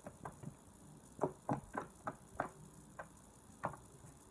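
Blue fluffy slime, made from white glue and shaving foam, pressed and poked with the fingers. It gives off a series of small pops, about eight or nine, at an uneven pace.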